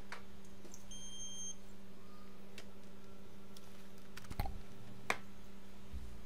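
A short, high electronic beep about a second in, then a quick cluster of light clicks and knocks a little after four seconds and one more sharp click just after five, as parts are set down on the workbench, all over a steady low electrical hum.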